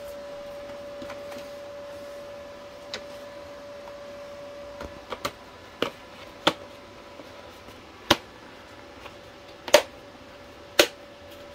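Plastic welding helmet being handled and its headband adjusted: scattered sharp clicks and knocks, about eight in all, the loudest near the end, over a steady faint hum.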